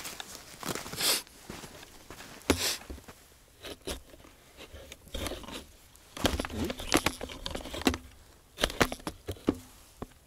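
Small pieces of wood being gathered and handled: irregular rustling and scraping, broken by scattered sharp clicks and snaps.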